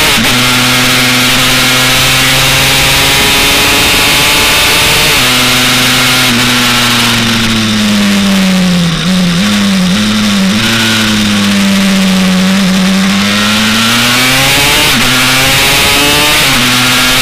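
Onboard sound of a Honda CR monobike's single-cylinder two-stroke engine, a 327cc big-bore TRX 250R unit, running hard. Engine speed falls from about five seconds in, wavers briefly at its lowest around nine to ten seconds, then climbs again near the end, with a steady rush of wind over the microphone throughout.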